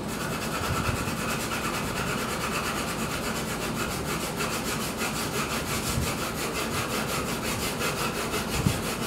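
A 2H graphite pencil shading on drawing paper: a steady scratching as the lead is swept back and forth in quick, even strokes.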